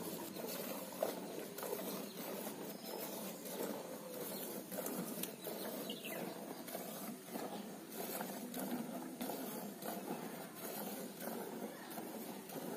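Cow being hand-milked: streams of milk squirting in a quick, steady patter into a steel milk pail that already holds milk.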